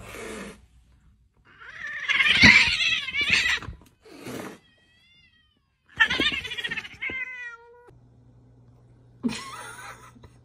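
Domestic cats yowling and meowing in a string of separate wavering calls. The longest and loudest call comes about two seconds in, and another cat meows near the end.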